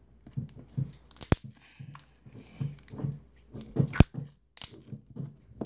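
Clear slime mixed with glitter and foam beads being squeezed, stretched and pressed between the hands: irregular squishes and crackles, with two sharp pops, one just over a second in and one about four seconds in.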